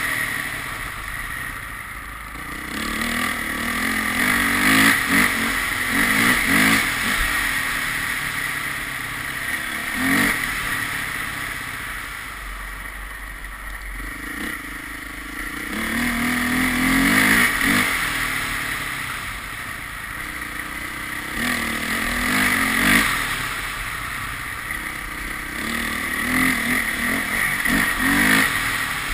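A vehicle engine accelerating and easing off again and again, its pitch rising with each pull, over a steady high hiss of wind or road noise.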